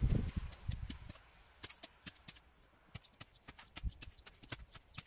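Steel shovel working loose soil: a few dull thumps at first, then a run of short scrapes and ticks as the earth is spread and levelled around a newly planted tree.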